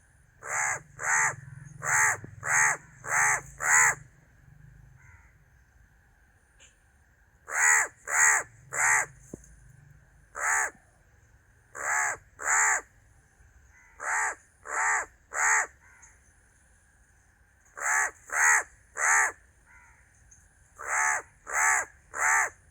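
Crow cawing: loud, harsh caws in runs of two to six, about two a second, with pauses of a few seconds between the runs.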